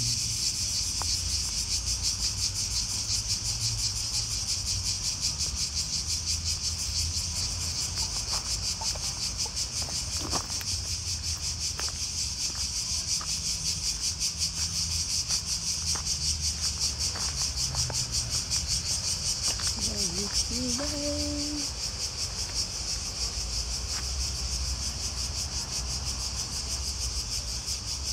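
Steady chorus of insects in the trees: a continuous high buzz with rapid pulsing, with a low rumble underneath.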